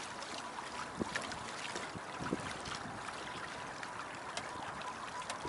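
Water washing along the hull of a small sailboat, a Beneteau First 20, under way: a steady rush of noise with scattered light knocks and clicks and a faint steady tone running through it.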